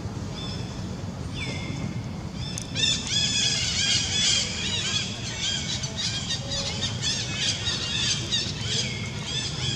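Birds chattering: a few high whistled notes, then from about three seconds in a dense, rapid run of high chirps and squawks, over a steady low hum.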